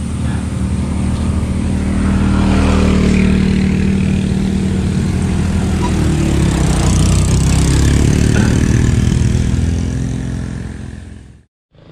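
A motor vehicle's engine running close by, with road and wind noise, loudest through the middle and fading out shortly before the end.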